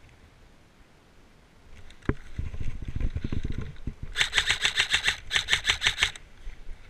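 Two bursts of rapid full-auto fire from an airsoft electric rifle (AEG), each about a second long, a fast even rattle of shots. Before them come a single click and a second or so of low rustling movement.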